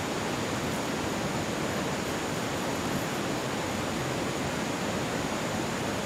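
Steady, even rushing noise outdoors, with a faint steady high-pitched tone running through it.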